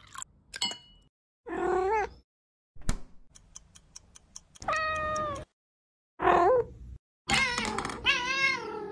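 A cat meowing four times: short calls, one long level meow in the middle, and a wavering, drawn-out one at the end. Between the first two meows comes a quick run of clock-like ticks, about six a second.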